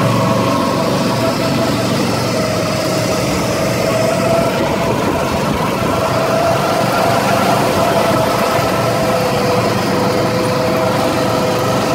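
Go-kart engines running steadily at track speed, heard from on board one kart: a continuous drone with a few held pitches that waver slightly.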